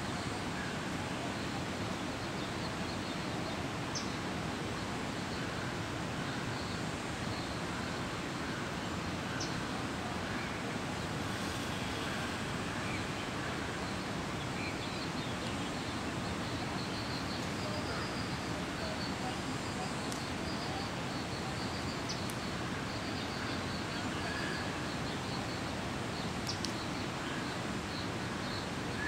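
Steady outdoor ambience: an even rushing background noise with faint, scattered bird chirps and a few light clicks.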